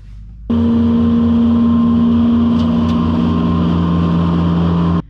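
Gianni Ferrari PG280 ride-on flail mower's 28-horsepower engine running steadily as it mows. The sound cuts in suddenly about half a second in and cuts off just before the end.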